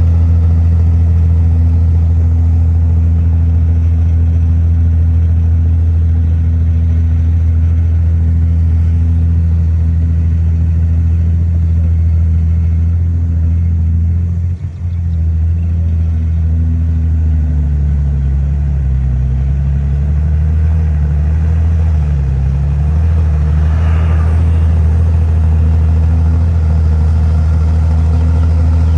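Heavy diesel engine of earthmoving machinery running steadily. Its sound dips briefly about halfway through, and then its pitch wavers up and down.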